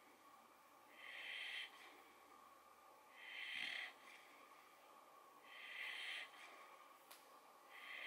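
Sleeping brindle boxer puppy breathing: a faint, regular hissy breath about every two seconds, four of them in a row.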